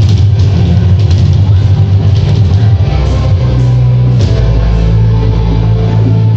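Loud rock-style song with drums playing from a Pump It Up dance arcade machine. The choppy driving part gives way to long held bass notes about three seconds in.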